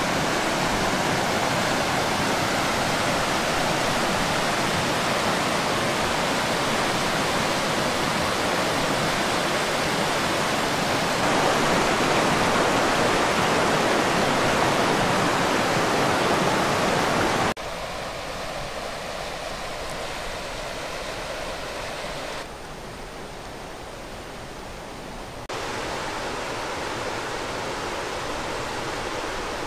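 Fast-flowing river rushing over rocky rapids, a steady rush of white water. It jumps in level at a few cuts and is softer in the second half.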